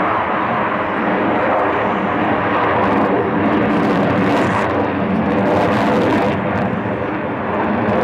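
Avro Vulcan B2's four Rolls-Royce Olympus turbojets running under power as the bomber banks through its display, a loud, steady jet noise with a brighter hiss for a couple of seconds in the middle.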